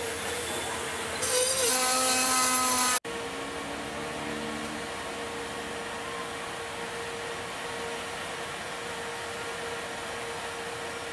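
Amtrak Superliner train coming into the station: about a second in, a loud hiss with a pitched squeal over it starts and cuts off abruptly about two seconds later. Then comes a steady hum with a faint whine from the train standing at the platform.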